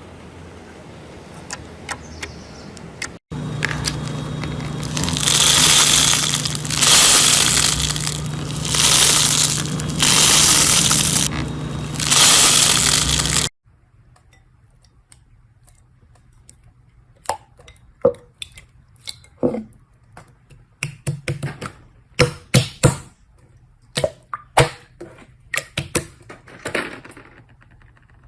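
Slime being handled close to the microphone: loud swelling waves of crackling and hiss about every two seconds, with a steady low hum under them, then from about halfway sharp pops and clicks with quiet gaps between.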